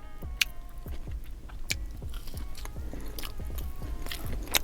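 A person chewing food close to the microphone, with a few sharp, crisp crunches between wetter chewing sounds. Faint music plays underneath.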